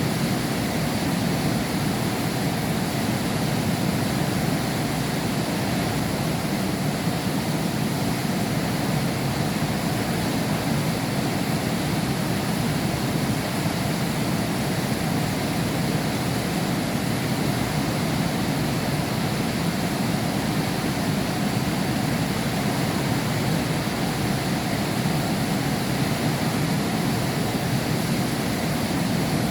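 Heavy rain heard from behind window glass: a steady, even rush with no breaks or thunder claps.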